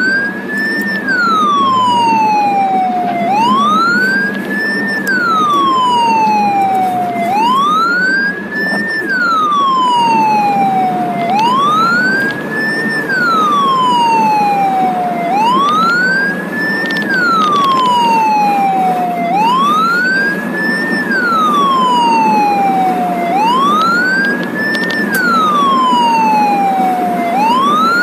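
Ambulance siren wailing, heard from inside the ambulance's cab over steady engine and road noise. Each cycle climbs in pitch in under a second, then slides slowly back down, repeating about every four seconds.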